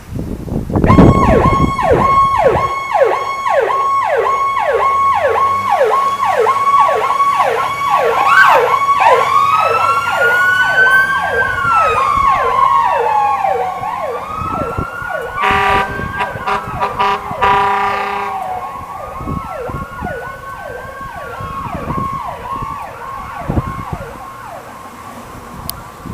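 Ambulance siren yelping in fast repeated falling sweeps, about two a second. A Whelen Powercall mechanical-style siren winds up and coasts down over it twice. Two blasts of Grover air horns sound a little past halfway, and the sirens then fade as the ambulance draws away.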